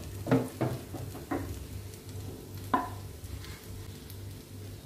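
Pork sisig sizzling on a hot cast-iron sizzling plate while a wooden spatula stirs it, knocking against the plate about five times, loudest about a third of a second in and again near three seconds in.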